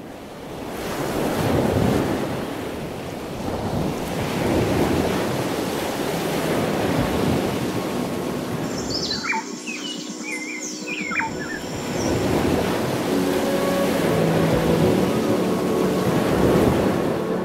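Sea waves washing onto a shore, the surf rising and falling in slow swells, with a short burst of bird chirps about nine seconds in. Soft music with held tones fades in under the surf in the last few seconds.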